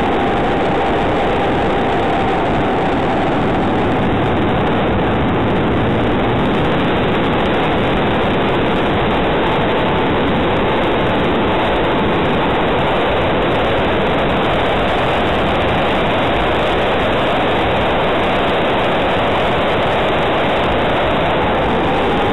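Aircraft in flight heard through its onboard camera: a loud, steady rush of wind and propeller noise, with a faint motor tone drifting slightly up and down in pitch.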